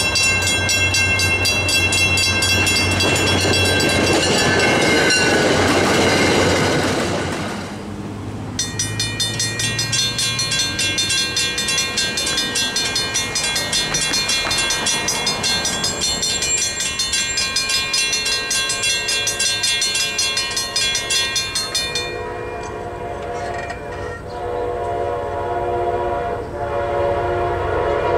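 Mechanical railroad crossing bells ringing at two grade crossings. The first bell rings over the swelling noise of a train. After a cut about eight seconds in, a second bell strikes in rapid, even strokes, and near the end the ringing turns lower and more uneven.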